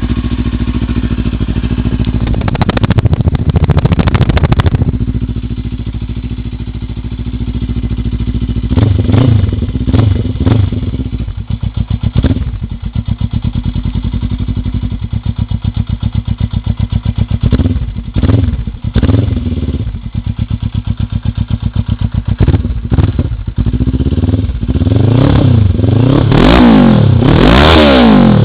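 Suzuki GS500E parallel-twin engine idling and revved through an open race silencer held to the exhaust: a steady idle broken by short rev blips, then longer revving near the end.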